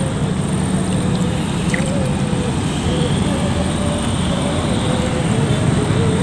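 Steady low background rumble of distant motor traffic, with a faint wavering hum.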